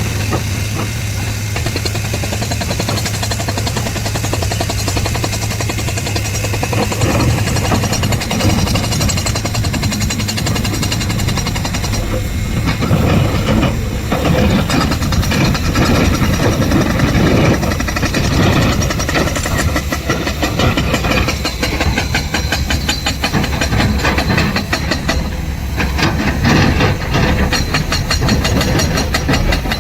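Diesel engine of a Cat 385C excavator running under load, with hiss and rapid rattling knocks. The sound grows heavier and louder about twelve seconds in.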